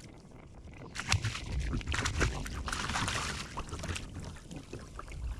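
A hooked redfish being fought beside a kayak: irregular splashing and rustling starting about a second in and easing off near the end.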